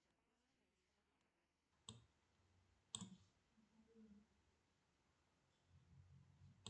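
Near silence broken by two faint sharp clicks about a second apart, near the start of the second half.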